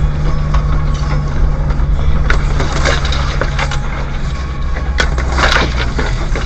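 A four-wheel-drive's engine drones steadily in low gear, heard from inside the cabin, while the vehicle climbs a rough track. Scratchy scrapes and knocks come and go over it, the loudest a scratchy burst about five seconds in.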